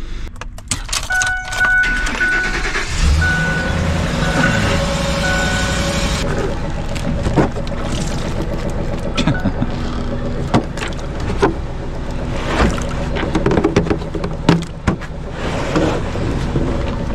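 A truck's engine starts about three seconds in and then idles steadily as it warms up, with scattered clicks and knocks. In the first few seconds a single-pitched beep repeats on and off.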